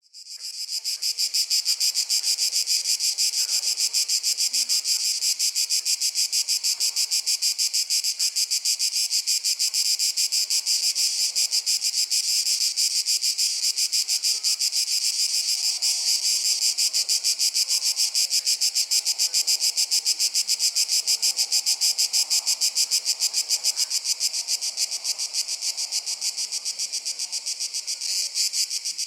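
A dense chorus of insects chirping in a rapid, even pulse, high-pitched and steady. It fades in at the start and eases slightly near the end.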